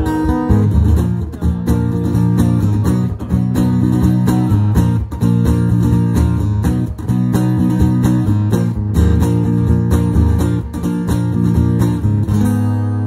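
Amplified acoustic guitar played solo without singing, strummed chords mixed with picked notes in a steady rhythm; near the end a chord is left ringing.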